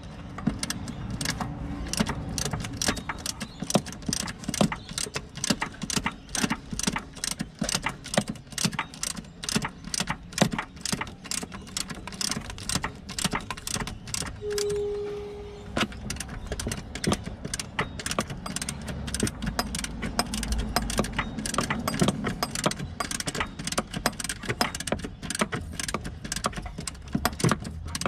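Quick, irregular metallic clicking and clinking of hand tools and bolts as a replacement alternator is bolted into the engine bay. A short steady tone sounds once about halfway through.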